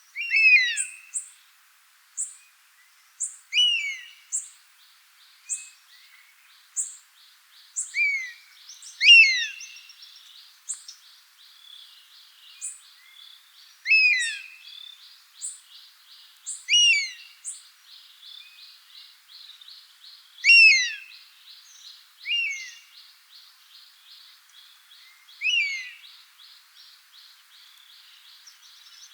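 Common buzzard calling: a long series of short, sharply falling calls, a few overlapping, some loud and some fainter. Under them run a steady pulsing hiss and regular short, high chirps.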